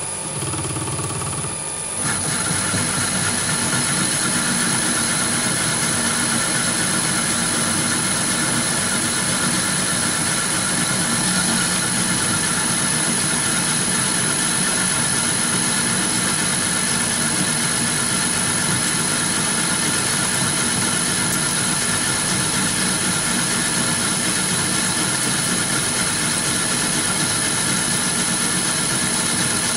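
Chinese mini lathe running with its spindle at about 300 rpm, its motor and gear train humming steadily while a blue nano DCMT 070204 carbide insert turns a hard tool steel block. The sound steps up louder about two seconds in and then holds steady.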